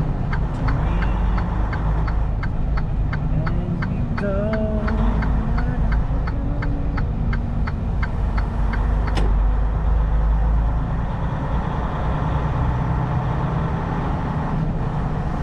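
Semi-truck driving on the road, heard from inside the cab: a steady low engine and road rumble. A fast, even ticking, about four ticks a second, runs through the first half and stops, and there is one sharp click about nine seconds in.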